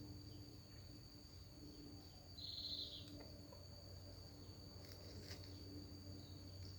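Steady high-pitched insect chirring, crickets or similar, with a short louder buzz about a third of the way in and a few faint ticks later.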